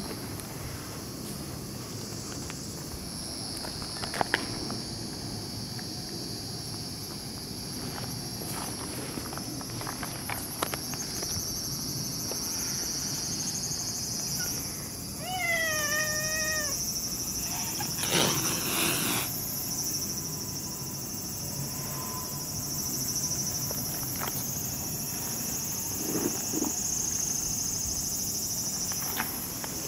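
Cats squaring off in a fight: one wavering yowl about halfway through, then a short harsh hiss a couple of seconds later. A steady high chirring of insects runs underneath.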